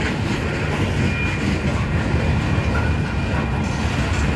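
Freight train of boxcars and refrigerator cars rolling past close by: a steady rumble and clatter of steel wheels on the rails, with a brief thin squeal about a second in.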